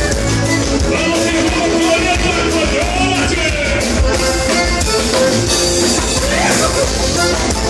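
Live gaúcho dance-band music: a singer over electric guitar and drum kit, with a steady dance beat.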